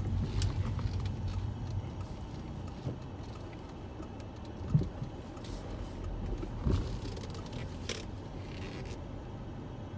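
Inside-the-cabin sound of a 2009 Alfa Romeo 159's 2.4-litre five-cylinder turbo diesel running as the car rolls slowly: a low, steady rumble, with a few light knocks partway through, the loudest about halfway.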